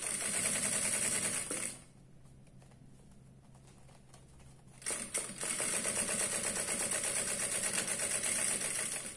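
Jack industrial sewing machine stitching at speed, topstitching around the edge of a padded fabric laptop case. It runs in a short burst of about a second and a half, pauses for about three seconds, then runs again for about four seconds and stops just before the end.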